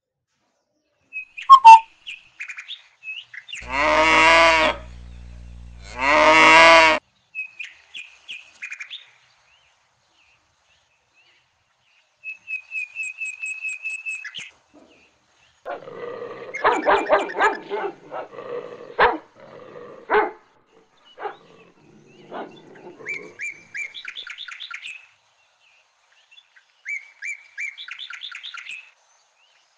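Farm-animal sounds: a cow mooing twice, long and loud, near the start, with birds chirping on and off throughout and a stretch of shorter animal calls in the middle.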